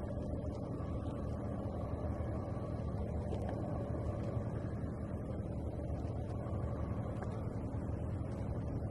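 Waterside ambience: a steady low rumble with a faint hum running under it, unchanging throughout.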